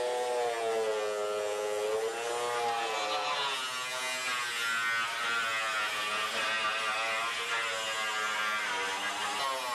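A power cutting tool cuts through the car's sheet-steel floor pan with a steady buzzing whine. Its pitch wavers and dips as the tool takes load.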